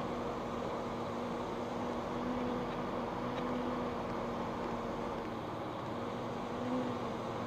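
Flight Design CTSW's Rotax 912 engine and propeller running steadily in flight, heard in the cockpit as a constant drone with a steady hum.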